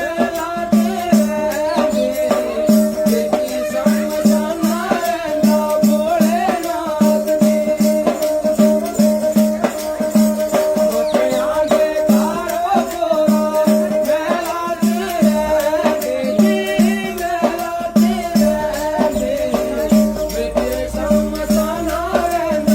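Music: a steady drone under a low tone pulsing at an even beat, with a rattle-like shaker ticking densely in time and a wavering melody line above.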